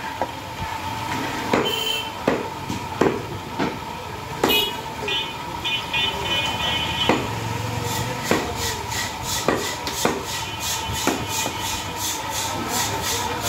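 Meat cleaver chopping goat meat and rib bone on a wooden chopping block: a string of sharp, irregular chops, with a steady hum underneath. A fast, even ticking starts in the background past the middle.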